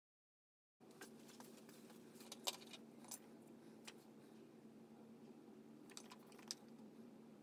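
Light clicks and taps of hands handling electrical wires, the sharpest about two and a half seconds in and a couple more near six seconds, over a steady low hum. The sound starts abruptly under a second in after dead silence.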